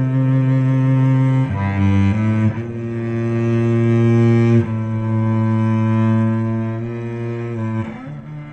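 Slow solo cello music: long, bowed low notes, each held for one to three seconds before moving to the next pitch.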